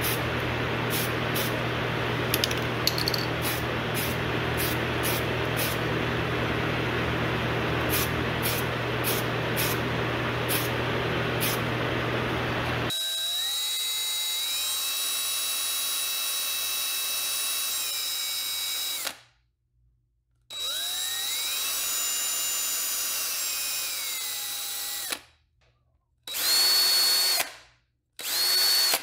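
A steady spraying hiss over a low fan hum, with scattered clicks, as clear coat is sprayed from an aerosol can. About 13 seconds in, a small power drill whines up to speed, runs steadily and winds down, several times with short silent gaps, boring the hinge holes in a carved wooden lure section.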